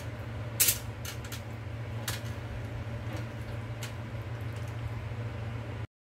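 Hands stuffing a raw whole chicken, with wet handling noises and a few sharp crackles, the loudest about half a second in, over a steady low hum. The sound cuts out briefly just before the end.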